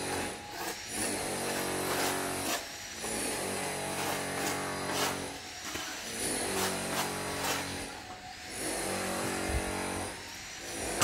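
A motor running in repeated spurts of about two seconds each, steady while it runs, with a high whine over a low hum and short pauses between spurts.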